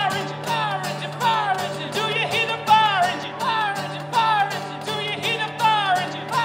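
Live acoustic duo: two acoustic guitars strummed in a steady rhythm with vocals through a PA, the voices sliding down in repeated falling phrases.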